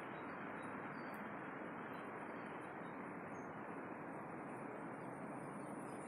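Faint steady outdoor background hiss, with a few tiny high tinkles and ticks scattered through it.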